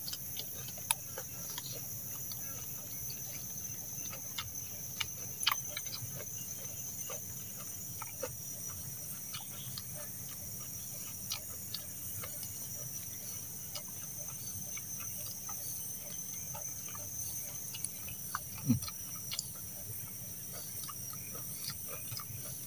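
Steady high-pitched drone of forest insects, with scattered small clicks and taps of someone eating: a metal spoon against food on a leaf, and chewing. A single louder thump comes near the end.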